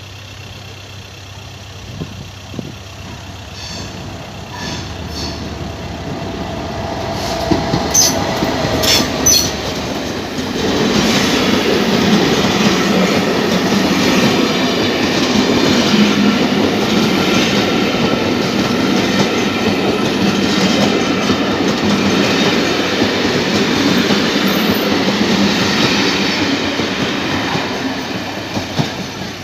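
A train passing close by on the line at a level crossing. It builds up over about ten seconds, with a few sharp clicks, then runs loud with wheel rumble and clickety-clack over the rails for nearly twenty seconds before fading near the end.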